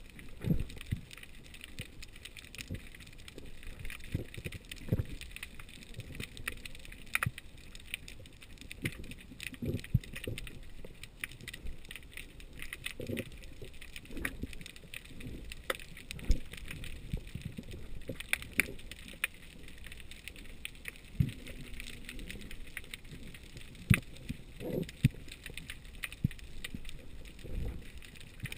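Underwater sound heard through a GoPro's waterproof housing during a breath-hold dive: a muffled water background with irregular low thumps and scattered sharp clicks.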